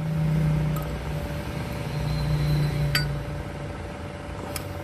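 A low steady hum that swells and fades twice, with a light click about three seconds in and another near the end.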